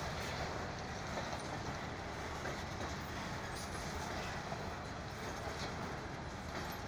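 A freight train of boxcars rolling past: the steady noise of steel wheels running on the rails and the cars rattling.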